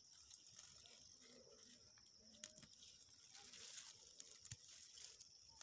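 Near silence: a faint steady high-pitched hum with a few scattered faint ticks.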